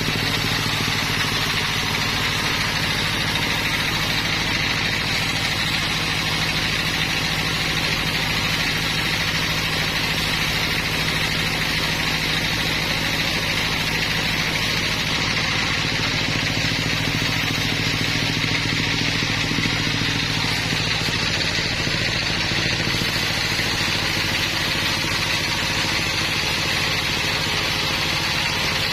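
Sawmill machinery running steadily: an even engine hum with a constant high whine over it and no separate cuts or knocks.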